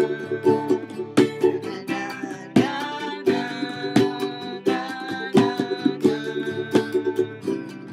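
Instrumental acoustic music: a strummed plucked-string instrument playing chords in a steady rhythm.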